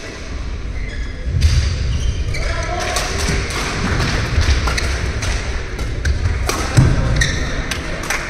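Badminton rally: rackets striking the shuttlecock with sharp cracks, players' feet thudding on the court and shoes squeaking, the heaviest thud about seven seconds in.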